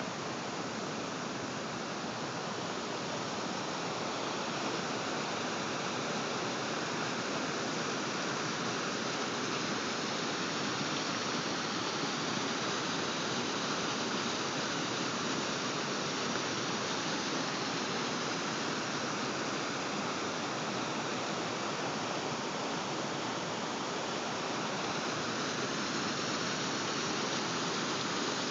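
Small waterfall and rock-ledge cascades pouring into a pool: a steady, unbroken rush of falling water.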